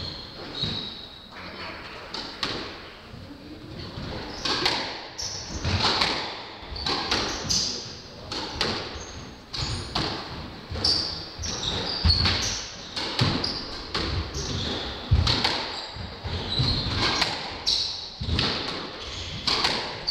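Squash rally: the ball is struck by rackets and smacks off the court walls in repeated sharp hits, echoing in the enclosed court, with short high squeaks from players' shoes on the wooden floor.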